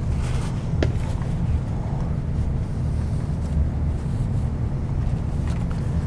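A steady low machine hum, with light rustling of a paper towel wiping a rudder and a faint click about a second in.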